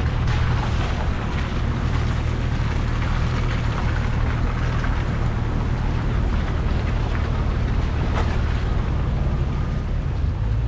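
Jeep engine running steadily at low trail speed, with scattered clicks and knocks from the tyres and body over a rough dirt trail.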